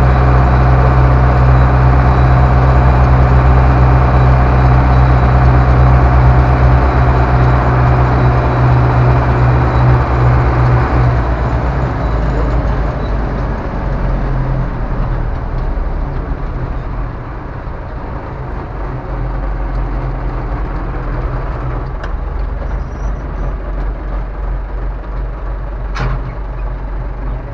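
Ursus C-385 tractor's four-cylinder diesel engine running, heard from inside the cab: loud and steady for about the first twelve seconds, then dropping back to lower revs and quieter for the rest. A short sharp click comes near the end.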